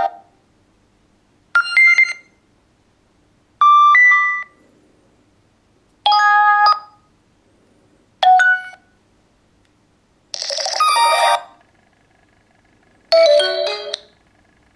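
A run of short Nokia X7 stock tones played one after another: six different brief chimes, each under a second long, about two seconds apart.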